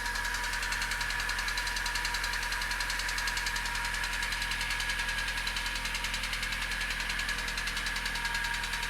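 ZMZ-406 inline-four petrol engine idling steadily with a rapid, even knock. This knock is absent on a cold engine and appears once it warms up, at idle and when the throttle is released.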